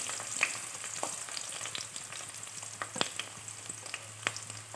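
Chopped onions sizzling in hot oil in a pan, a steady hiss with scattered pops and crackles.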